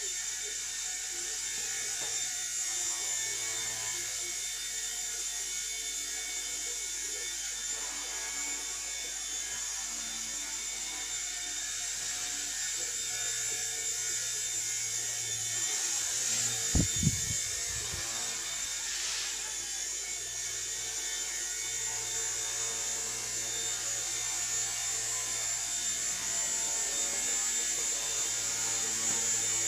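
Small electric RC helicopter flying: a steady high-pitched whine of its motor and spinning rotor blades. Two short thumps come about halfway through.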